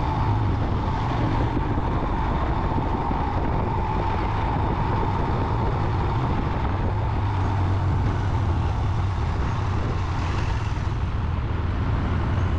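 On-board sound of a Royal Enfield motorcycle riding at road speed: a steady low engine rumble under a constant rush of wind and road noise, with trucks alongside.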